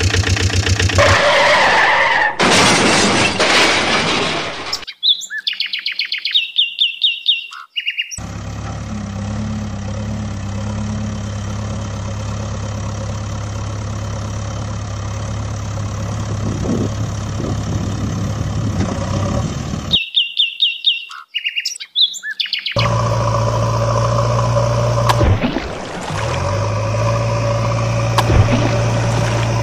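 A steady low engine drone, like a heavy diesel vehicle running, fills most of the clip. It is broken twice by a couple of seconds of quick, high bird chirps, and the clip opens with a few seconds of music.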